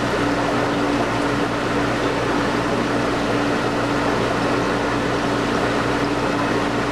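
Steady drone of aquarium equipment: a constant hum over an even hiss of running air pumps and bubbling water.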